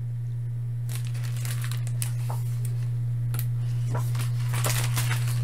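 Paper pages of a picture book rustling and crinkling as they are handled and turned, starting about a second in, over a steady low hum.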